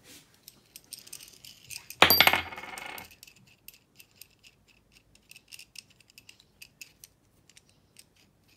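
Metal tools and shock-absorber parts being handled on a toolbox lid. There is one loud ringing metallic clank about two seconds in, then a run of small clicks and taps.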